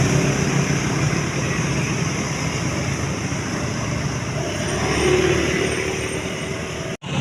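Road traffic running past: a steady mix of vehicle engine and tyre noise, which breaks off abruptly near the end.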